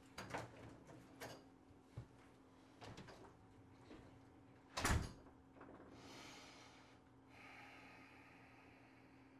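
A few light knocks and clicks, then a door shutting with one heavy thump about five seconds in, followed by a faint steady hiss.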